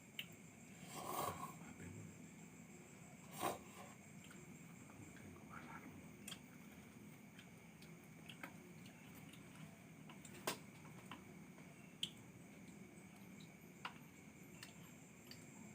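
Near-silent ambience: a faint steady high-pitched hum with scattered small clicks and taps, and short rustles about a second in and again around three and a half seconds.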